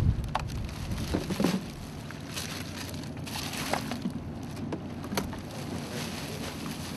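Plastic carrier bags crinkling and plastic bottles knocking together as a bag of plastic litter is emptied out, in short scattered crackles over wind rumble on the microphone.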